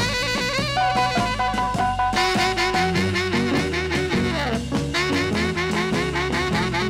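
Swing-style jazz music with saxophone, brass and a steady drum beat, with a falling slide of pitch about four seconds in.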